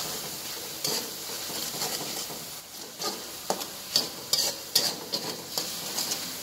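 Metal spatula stirring and scraping sambal of sliced tomato and chili in a wok while the oil sizzles steadily. In the second half, a run of sharp scrapes of the spatula against the wok.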